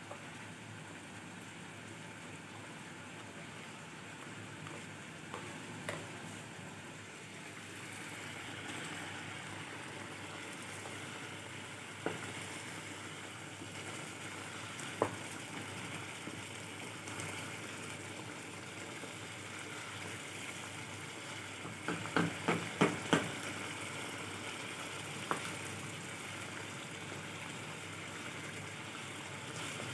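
Chicken sizzling in white karahi gravy in a nonstick pan, a steady hiss that grows fuller a few seconds in. A wooden spoon knocks against the pan now and then, with several knocks in quick succession about three quarters of the way through.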